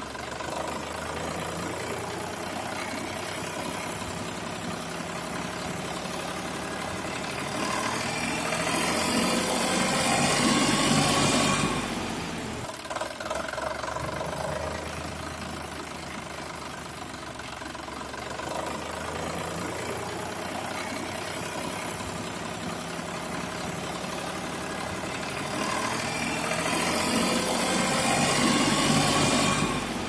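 Recorded tractor engine sound, looped: the engine runs steadily, then revs up louder with a rising whine before dropping back suddenly, and the same stretch plays again in the second half.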